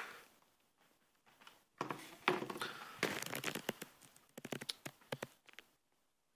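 Paper crinkling and rustling, with small irregular knocks, as a wood-framed solar panel is laid down on a sheet of brown paper; it stops a little before the end.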